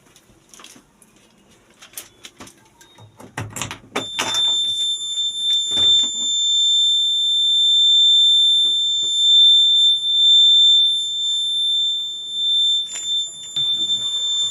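A few clicks, then a steady, unbroken high-pitched electronic warning buzzer that starts suddenly about four seconds in and holds one tone, typical of a backhoe loader's cab alarm buzzer.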